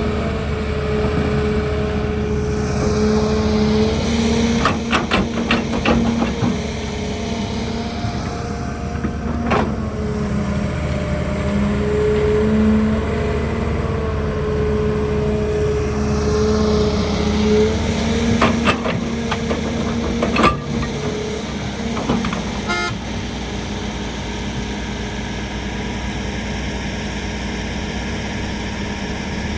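Excavator engine running steadily with a held high tone over it, and bursts of sharp clanks and knocks about a fifth of the way in, at about a third, and again around two-thirds through, typical of bucket and digging work.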